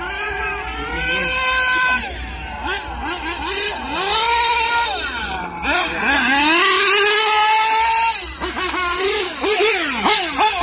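1/8-scale GT radio-controlled cars running laps, their small engines revving up and down in rising and falling pitch as they accelerate and brake. More than one car is heard at once, their pitches crossing.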